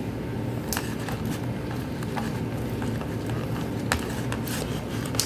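Clear glue and slime activator being stirred in a bowl with a mixing tool: scattered wet clicks and squelches over a steady low hum.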